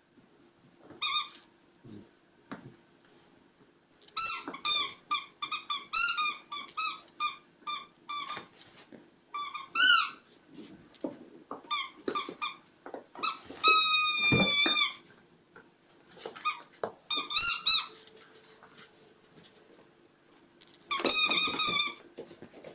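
Puppy whining in high-pitched squeaks: quick runs of short cries, with longer drawn-out cries about two-thirds of the way through and near the end.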